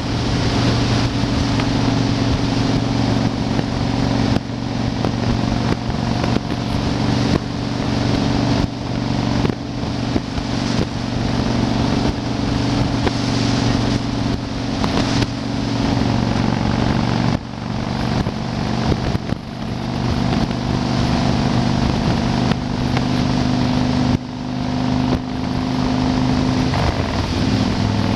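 Yamaha Wildstar XV1600's air-cooled V-twin engine running steadily at highway cruising speed, with wind buffeting the microphone; near the end the engine note drops as the bike slows.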